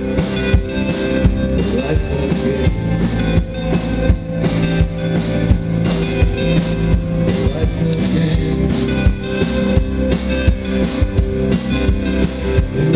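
Live band playing amplified through a PA: acoustic and electric guitars over a drum kit keeping a steady beat.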